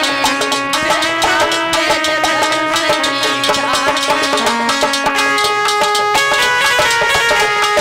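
Instrumental break in an Indian folk devotional song: a melody of held notes that steps to a higher note about two thirds of the way through, over a quick, steady percussion beat.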